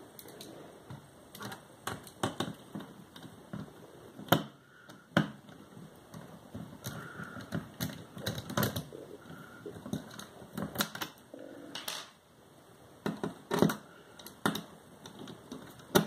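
Magnetic-tip screwdriver unscrewing the hex standoff posts that hold a mini PC's motherboard: irregular light metallic clicks and scrapes as the bit turns and slips in the posts, with a sharper click about four seconds in.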